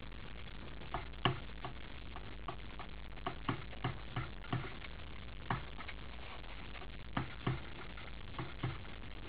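A jackdaw pecking at a hanging seed ball in its mesh holder: irregular sharp taps of the beak, in short quick runs with pauses.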